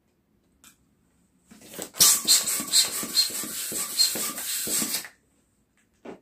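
Hand-held balloon pump worked in quick strokes, a rush of air surging with each stroke for about three seconds and stopping abruptly, as a long twisting balloon is inflated.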